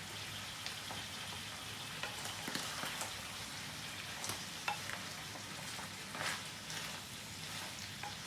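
Peppers and sauce sizzling in a pan, a steady frying hiss with scattered small clicks and taps.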